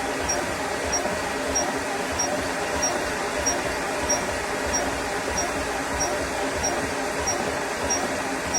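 Portable high-pressure PCP air compressor running with a steady mechanical noise and a short, faint high tick repeating about every two-thirds of a second.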